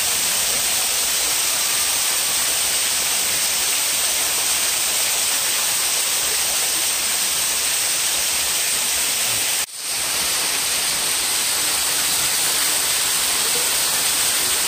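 Steady rushing of a shallow rocky creek's flowing water. It drops out for a moment about ten seconds in and then comes straight back.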